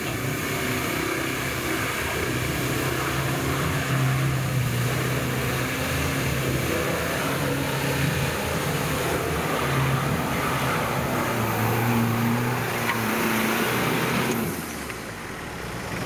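Off-road 4x4's engine revving, its pitch rising and falling, as the truck ploughs through deep water with a constant rush of splashing spray. About a second before the end, the splashing dies away and the sound gets quieter.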